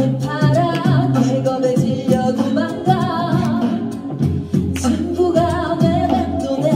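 Five-voice a cappella group singing into microphones through a PA, several voices in harmony over a low sung bass line, with sharp beatbox hits for percussion.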